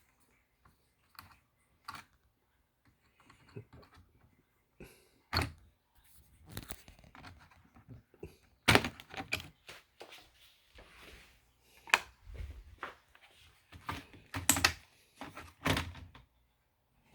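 Irregular clicks, taps and knocks of hands handling the parts of an opened laptop while disconnecting the hard drive and cables from the mainboard, with a few sharper knocks in the second half.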